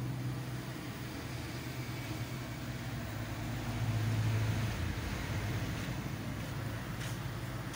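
A steady low mechanical hum under a faint noise haze, swelling briefly about four seconds in, with a faint click near the end.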